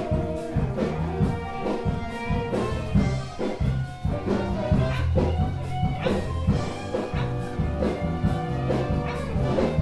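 A live band rehearsing: a full band playing a bluesy, jazz-tinged tune with bass notes and a steady drum beat.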